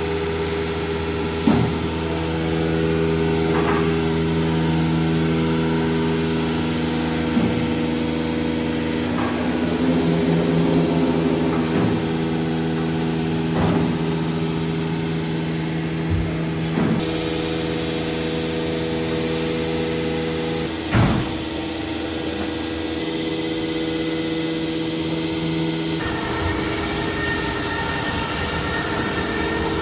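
Steady hum of an Excitech nesting CNC router line, with its motors and vacuum pumps running, broken by occasional sharp clicks and knocks from the machine. Near the end the mix of tones in the hum changes.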